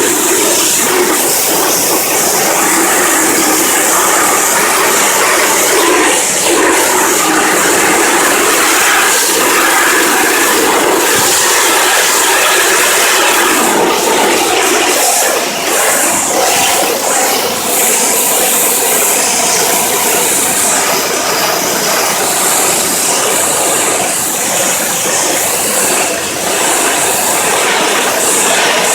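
Pressure washer spraying water against house siding: a loud, steady rushing hiss that dips briefly a few times, washing dirt and dark staining off the wall with plain water.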